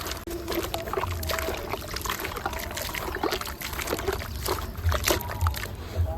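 Small chunks of concrete crumbling apart in water: a dense run of crisp crackles and snaps.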